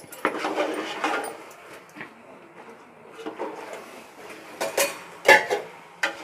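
A spoon scraping and clinking against a metal pot while stirring thick, wet fish curry masala. There is a longer scraping stir at the start, then a few sharp clinks in the last couple of seconds.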